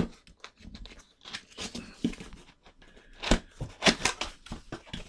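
Cardboard box being opened by hand: irregular scraping and rustling of the flaps, with a few sharp knocks, the loudest a little after three seconds in and again just before four.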